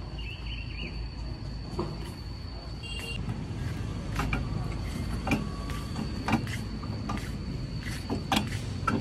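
Metal outdoor exercise machine knocking and clicking about once a second as a child works its pedals, over a steady low outdoor rumble and a faint steady high tone.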